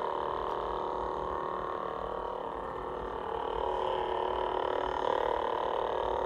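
Steady electronic idle hum of two ignited lightsabers' sound boards, made of several fixed tones, getting a little louder about halfway through.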